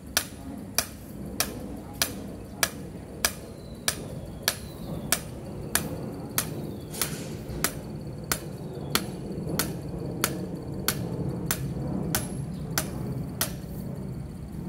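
Hammer striking the top of a thin steel rod held upright in the soil, driving it into the ground: steady sharp blows, about one and a half a second.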